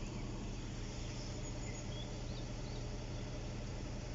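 Steady outdoor background noise with a constant low hum, and a few faint bird chirps between about one and a half and three seconds in.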